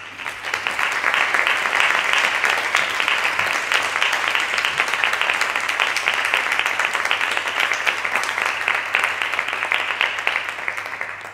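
Audience applauding: dense, steady clapping that tapers off and stops near the end.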